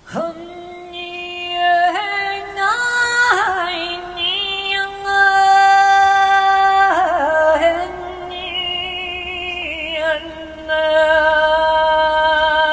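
A woman singing wordless, unaccompanied long notes: the pitch climbs in steps early on, slides and wavers between notes in the middle, and settles into a long held note near the end.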